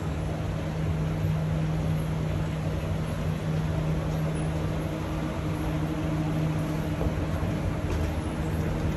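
Steady mechanical hum: a constant low drone with one strong low tone and a fainter higher one, unchanging throughout.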